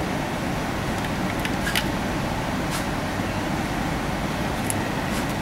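Steady whooshing hum of a biosafety cabinet's blower running, with a few faint light clicks as small plastic vials of culture medium are picked up and set down.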